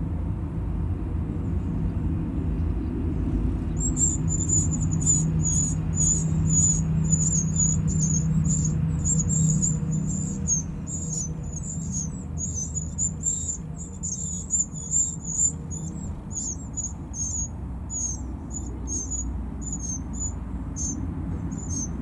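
Eurasian wren nestlings begging in the nest box as a parent brings food: thin, high calls repeated about twice a second, starting a few seconds in. Under them is a steady low rumble, louder in the first half.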